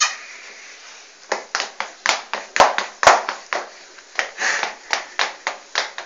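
A sharp knock, then from about a second in a run of irregular short taps, roughly three or four a second.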